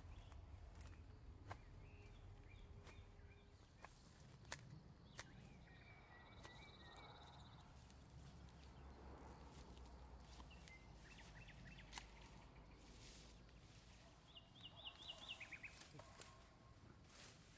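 Quiet outdoor ambience with faint bird calls and a low rumble. Near the end comes a short run of quick high chirps, and scattered faint clicks are heard throughout.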